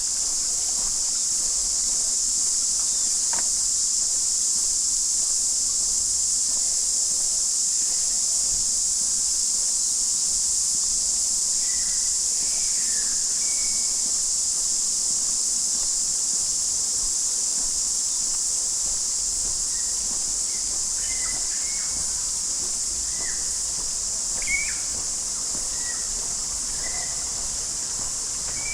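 Cicada chorus, a steady high-pitched hiss throughout, with short bird chirps scattered mainly through the second half and one louder chirp near the end.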